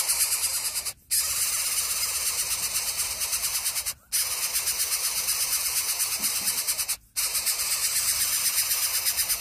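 A nestling bird begging with its beak gaping, giving long hissing calls about three seconds each with short breaks between them, the begging that goes on even after it has been fed.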